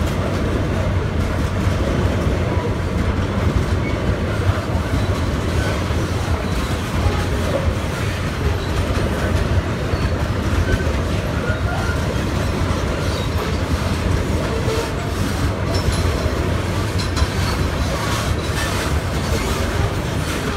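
Freight train of covered hopper wagons rolling past close by, its wheels on the rails making a steady low rumble.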